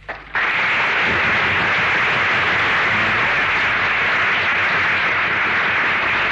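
Audience applause breaking out as a live song ends, then holding steady.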